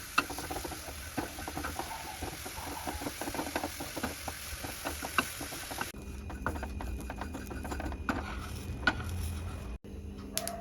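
Sesame seeds crackling and popping as they roast in a small pan, a dense run of irregular small pops. The popping is the sign that the sesame is roasted.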